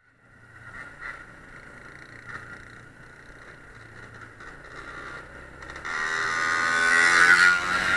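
ATV engine running, heard from the rider's seat. About six seconds in it revs up and gets louder, its pitch rising.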